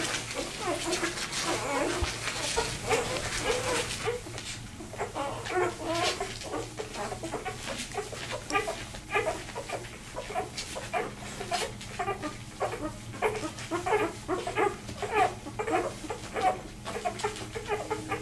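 Two-day-old vizsla puppy crying in a rapid string of short squeaks and whimpers, a few calls a second: the distress calls of a newborn pup separated from its mother and litter.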